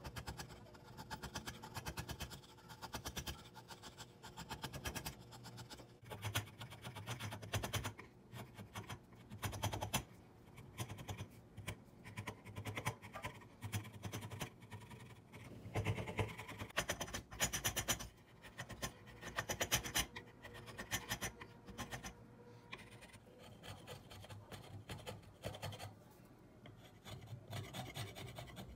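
A flat steel blade drawn repeatedly across a wooden handle blank held in a vise, shaving and scraping the wood in runs of quick strokes with short pauses between them.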